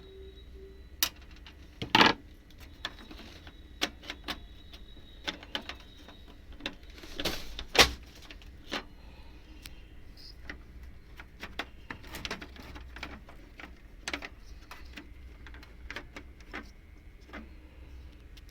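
Plastic casing of an HP LaserJet M1005 printer being taken apart by hand: irregular clicks, taps and rattles, with louder knocks about two and eight seconds in.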